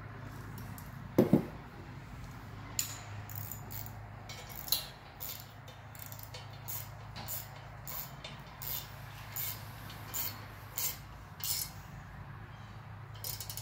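Allen key and fasteners clicking against a steel mounting bracket and aluminium intercooler end tank as the bracket bolt is turned: short, sharp metal clicks about two a second, after a single louder dull thump about a second in.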